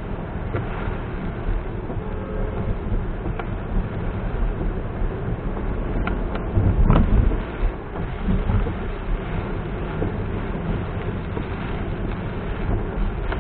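A car driving through heavy rain: a steady low rumble of road and tyre noise mixed with rain. About halfway through it swells louder for about a second, with a few sharp clicks.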